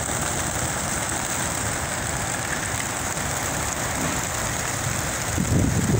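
Massed wingbeats of a large flock of racing pigeons taking off from a transport truck's crates: a steady, dense clatter of wings. A few low thumps come near the end.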